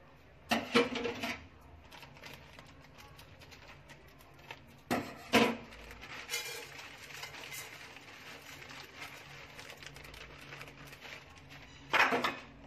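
Coarse rock salt poured into an empty stainless steel pot, the grains rattling on the metal, with a few louder knocks and clatters of handling: one about half a second in, one about five seconds in and one near the end.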